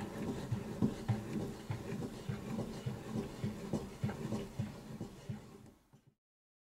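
STAX TOOLS 303 drill press table-elevation crank being turned by hand, its rack-and-pinion gearing clicking in a quick regular rhythm of about three to four clicks a second. It cuts off about six seconds in.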